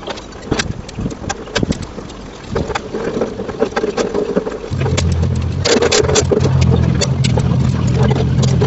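Irregular sharp clicks and crackles from hand work on a steel gate frame. About halfway through, a steady low hum joins them, like a motor running.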